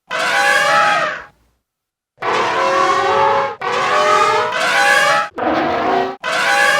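Five separate blasts of elephant-call-based sound-effect material, each about a second long, starting and stopping abruptly, with a gap of about a second after the first.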